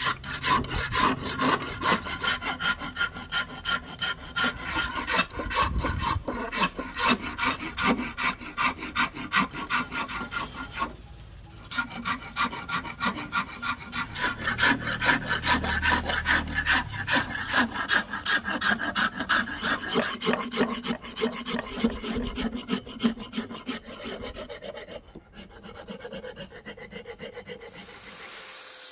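Steel flat file rasping across a Siamese rosewood hatchet handle held in a vise, in rapid, even strokes about three a second. The strokes break off briefly about eleven seconds in and turn softer near the end.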